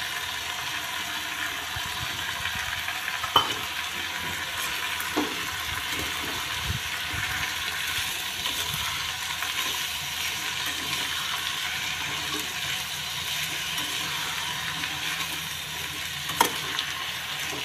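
Mixed vegetables sizzling in hot mustard oil in a deep frying pan while being stirred with a metal slotted spoon, a steady hiss with a few sharp taps of the spoon against the pan.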